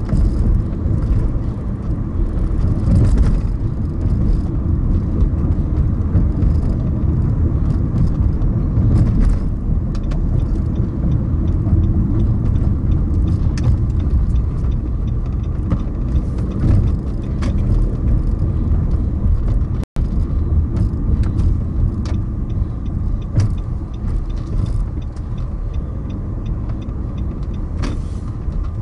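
A car driving on city streets: steady low road and engine rumble with scattered light clicks and knocks. The sound drops out for an instant about twenty seconds in.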